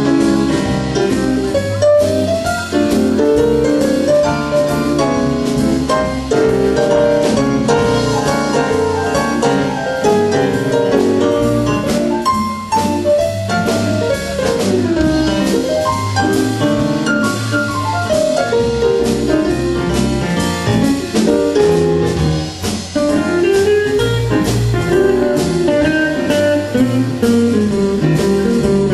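Live country band instrumental: a pedal steel guitar plays the lead melody with smooth sliding notes, over electric bass and a drum kit.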